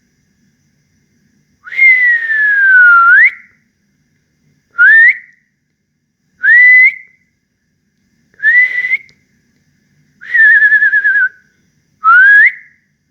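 A person whistling with the lips, six separate whistles. The first is long, sliding down and then swooping back up; the next few are short rising whistles, and one about ten seconds in wavers as it falls.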